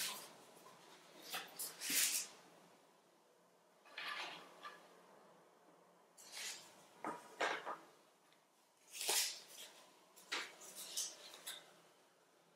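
Paper handling on a tabletop: a sheet of paper rustling and folded paper domino pieces being picked up and set down, heard as a scattered series of short rustles and light taps with quiet pauses between.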